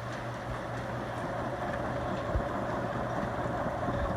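Antique Westinghouse ceiling fan running steadily on high speed with a constant hum. Its motor has a bearing that the owner thinks sounds worn. Steady rain falls in the background.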